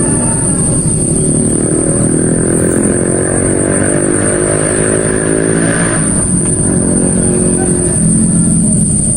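A small engine running steadily, its pitch rising and then falling away about six seconds in, over a constant high-pitched tone.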